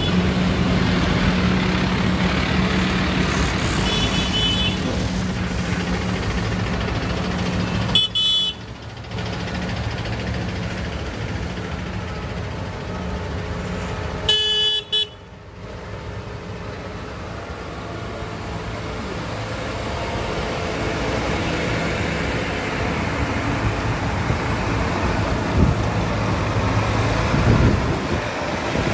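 Diesel engines of farm tractors running as they drive slowly past in a procession, with a few short horn toots.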